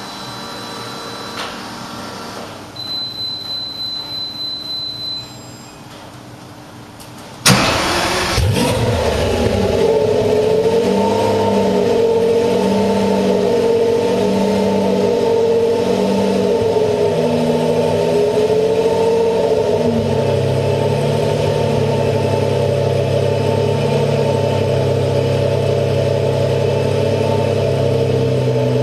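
Engine of a heavily modified Fiat 500 custom car being started. After a few seconds of quieter start-up sounds, including a rhythmic whirring about four times a second, it fires with a sudden loud burst about seven seconds in. It then settles into a steady, loud idle with a slightly wavering note.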